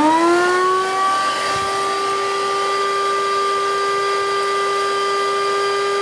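Vacuum cleaner motor spinning up, its whine rising in pitch over the first second, then running at a steady pitch while it sucks debris and dried mud out of the base pan of an air-conditioner condensing unit.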